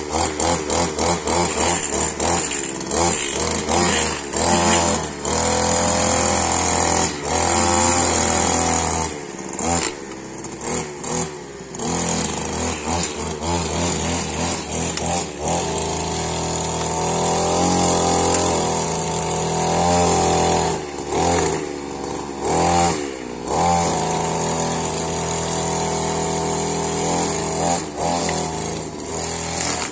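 Petrol grass trimmer running, its small two-stroke engine revving up and down as it cuts grass, dropping back briefly several times.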